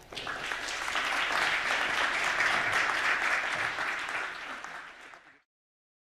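Audience applauding, a dense steady clatter of many hands that fades and then cuts off abruptly about five seconds in.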